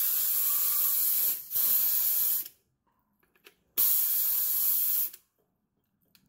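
Compressed-air spray gun spraying in three bursts of steady hiss: the first stops after about a second and a half, a second follows almost at once for about a second, and after a pause of over a second a third lasts about a second and a half.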